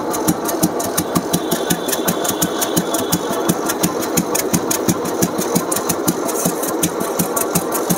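1998 Royal Enfield Bullet's single-cylinder engine idling, with an even exhaust beat of about six thumps a second. The seller says the engine makes no mechanical noise, only the silencer beat, which is the sign of a healthy, freshly restored engine.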